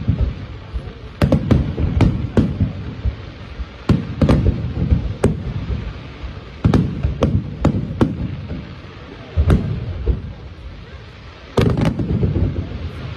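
Aerial fireworks shells bursting in a display: groups of sharp bangs come every two seconds or so, each group trailing a low rumbling echo.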